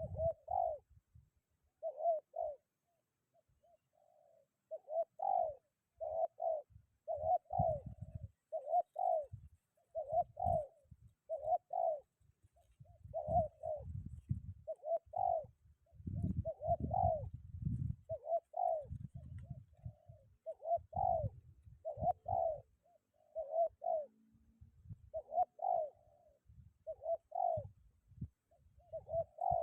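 Spotted dove cooing over and over in short repeated phrases about once a second. Wind buffets the microphone with low rumbling gusts, strongest a little past the middle.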